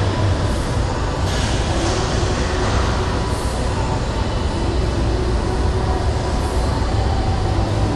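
Steady low rumble and hiss of a gym's background noise, with a short brighter hiss about a second and a half in.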